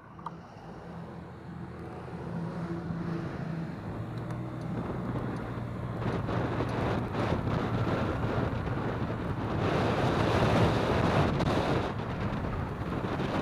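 Wind rushing over the microphone of a camera on a moving vehicle in road traffic, growing steadily louder as it gathers speed. A low engine hum sits under it in the first half and is then covered by the rushing noise.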